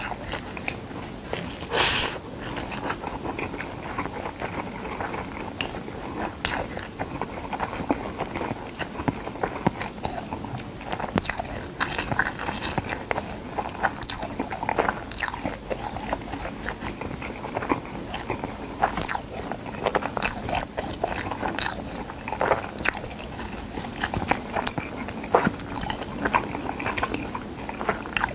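Close-up chewing and biting of dried seaweed (gim) wrapped around a rice bite: a run of sharp, crisp crunches with wetter chewing between them. The loudest crunch comes about two seconds in.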